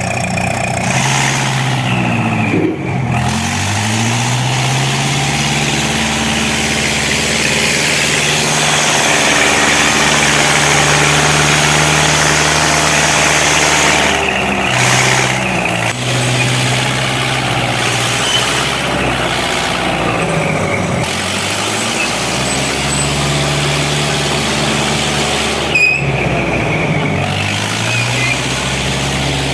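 Heavy equipment's large diesel engine working under load, its revs rising and falling several times, with a steady hiss over the top.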